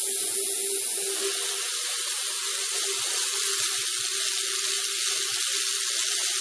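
High-voltage corona discharge hissing and sizzling where an ungrounded screwdriver tip touches a flyback-driven wire, growing louder about a second in, over a steady hum.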